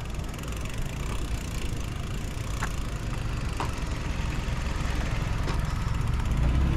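Riding a mountain bike: steady low rumble of wind and tyre noise, growing a little louder near the end, with a few faint short chirps.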